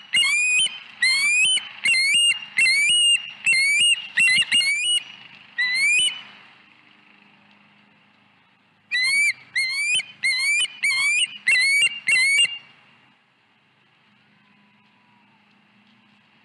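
Osprey calling: a rapid series of high, whistled, upslurred chirps, about two a second, in two bouts separated by a pause of a few seconds; it stops about three-quarters of the way through.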